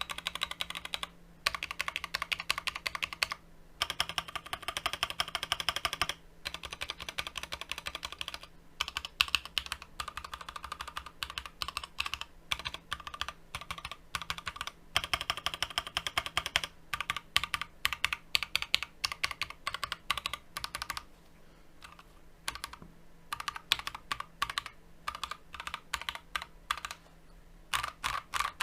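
Fast typing on an Akko MOD007 gasket-mount custom mechanical keyboard with MMD Ice Cream full-POM linear switches: rapid runs of keystrokes in bursts, with brief pauses between words and phrases.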